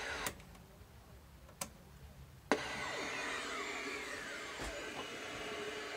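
Three sharp clicks of the boombox's buttons, then the radio's static hiss cuts in suddenly about two and a half seconds in and runs steadily, with faint whistles sliding down in pitch as the tuner searches between stations.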